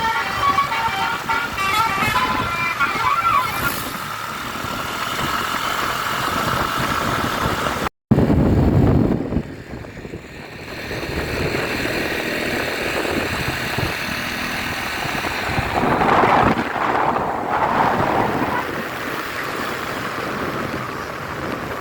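A bus's multi-tone 'telolet basuri' horn plays a short stepping tune and then holds one note, until the sound cuts off suddenly about eight seconds in. After the cut there is street traffic noise, with a heavy vehicle rumbling past.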